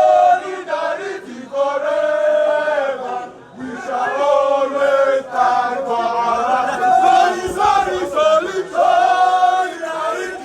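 A crowd of protesters chanting and singing together in unison, in sung phrases a second or two long with short breaks between them.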